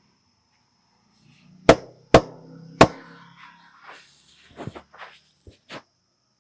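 Three sharp, loud hand strikes from a barber's head massage, about half a second apart, followed by a few softer clicks.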